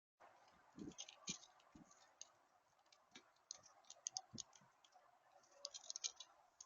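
Faint, irregular small clicks and ticks, with a few soft low knocks among them.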